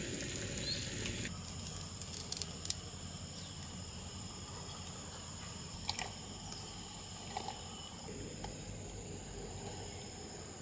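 Steady high-pitched insect chorus, with a few soft clicks and taps from cooking at a stainless steel pot as okra goes in and is stirred.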